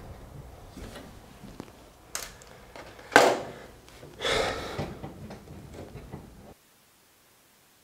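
Hands handling and routing wires in an aluminum airframe: small clicks and rustles, a sharp scrape about three seconds in and a longer rasp just after four seconds. The sound cuts off suddenly near the end.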